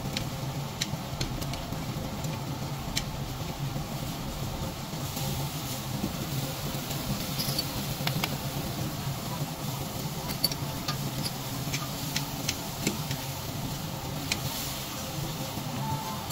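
Beef intestines and tripe sizzling on a wire-mesh grill over charcoal, a steady hiss with scattered sharp pops and clicks as metal tongs turn the pieces, over a steady low hum.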